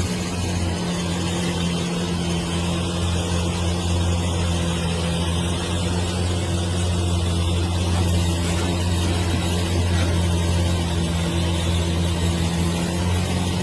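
Excavator's diesel engine running steadily at a constant speed, a low even drone.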